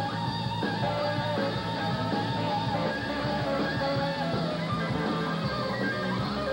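Rock music with an electric guitar playing held lead notes that step from pitch to pitch over the band.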